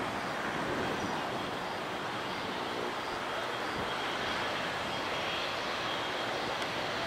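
Boeing 777-200F's twin GE90 turbofans running at low taxi power: a steady rush of jet noise with a faint high whine.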